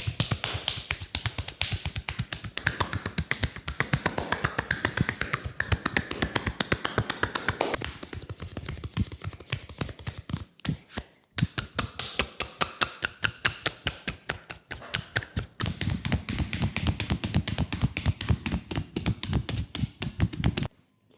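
Rapid percussive massage strokes: hands tapping and slapping on a leg in quick succession, several strikes a second, with a short break about ten and a half seconds in.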